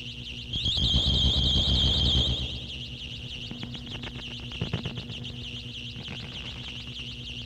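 Experimental noise music: a high electronic tone warbling rapidly up and down like an alarm, with a loud burst of low distorted rumble from about half a second to two and a half seconds in, then scattered crackles.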